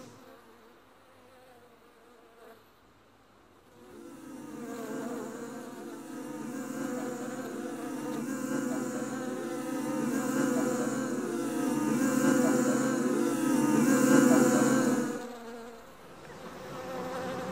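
Many honeybees buzzing together as a dense swarm hum, with lots of wavering wing tones. It swells in about four seconds in, grows louder, then fades away near the end.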